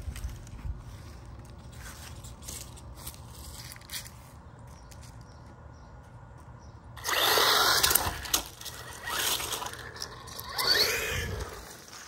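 Battery-powered RC monster truck's electric motor whining in three short bursts of acceleration, about seven, nine and ten-and-a-half seconds in, the last rising and falling in pitch as it drives off over a concrete sidewalk.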